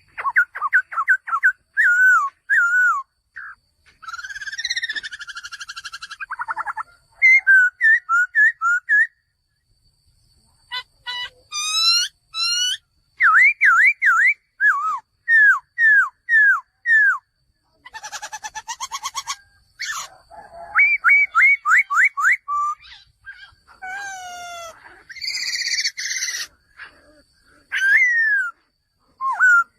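Male laughingthrush singing: runs of loud, clear slurred whistles, each note repeated several times in quick succession, with short pauses between phrases and a few harsher, buzzy calls mixed in.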